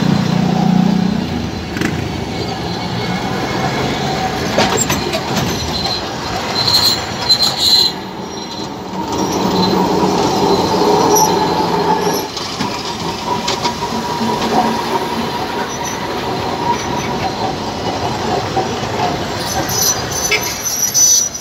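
Tram cars rolling slowly past at close range, wheels running on the rails with a steady rumble. A brief high squeal from the wheels comes about 7 s in and again near the end.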